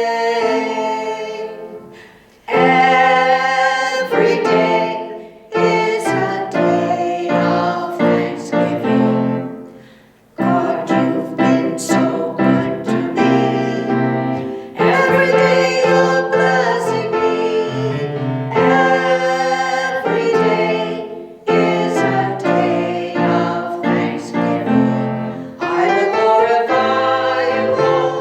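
Piano with singing: a gospel worship song played in phrases, with short breaks between them.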